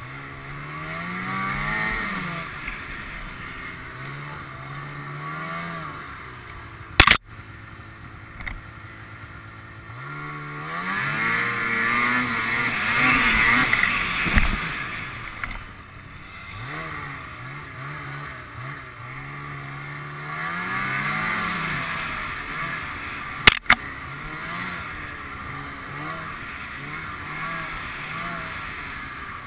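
Ski-Doo snowmobile engine running, its pitch climbing and falling again and again as the throttle opens and eases off, with a hiss that swells at the faster stretches. Two sharp knocks, about 16 seconds apart, are the loudest sounds.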